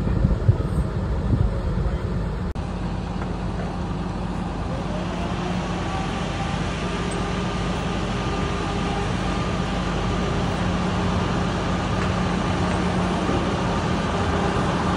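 Edison Motors diesel-electric semi truck running as it drives up onto a lowboy trailer: a steady low hum, with a whine that rises about five seconds in and then holds. A few knocks in the first second or so.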